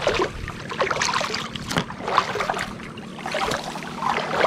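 Tall dry reeds rustling and crackling in irregular bursts as someone pushes through them at the edge of a shallow creek, with water sloshing underfoot.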